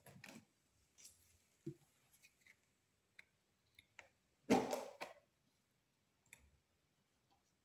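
Scattered light clicks and taps of kitchen handling at a pressure cooker pan holding clam meat and chopped vegetables, with one louder clatter lasting about half a second, about four and a half seconds in.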